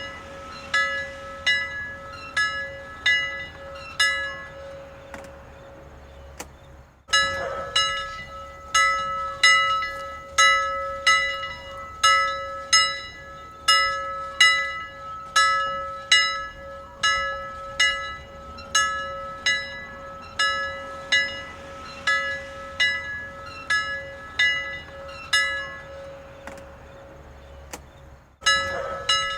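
A single bell struck repeatedly at a steady pace of about one and a half strokes a second, each stroke ringing on over a sustained hum. The strokes stop twice, about a fifth of the way in and again near the end, letting the ring fade before the ringing starts again abruptly.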